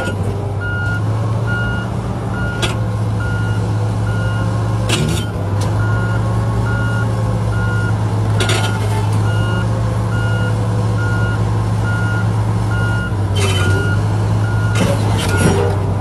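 Komatsu D475A bulldozer's diesel engine running with a steady low drone while its reversing alarm beeps a little faster than once a second. A few sharp clanks break in every few seconds.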